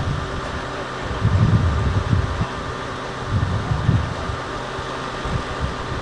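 Wind buffeting the microphone in uneven low rumbling gusts, over a faint steady hum.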